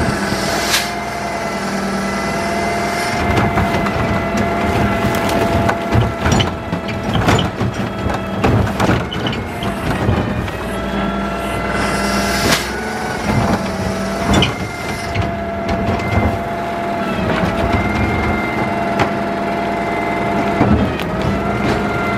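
Garbage truck's hydraulics whining steadily over the running engine, the whine dipping briefly in pitch several times, while the automated arm lifts a green yard-waste cart and dumps it into the hopper. Knocks and clatter from the cart and arm, and dry grass and brush falling into the hopper.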